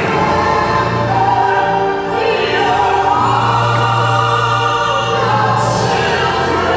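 Gospel ballad with sung vocals in long held notes over a steady low bass note.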